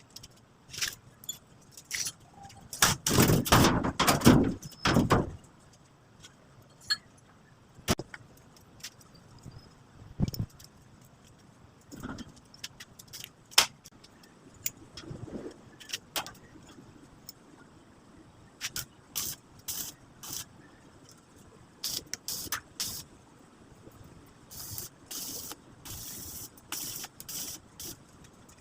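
Scattered metallic clinks and knocks from metal parts being handled, with a louder stretch of clattering about three seconds in and a run of short, sharp high-pitched bursts near the end.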